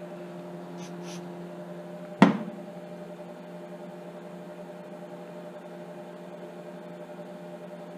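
Steady electric hum from a space heater, with a single sharp knock about two seconds in as an aerosol can is set down on the workbench.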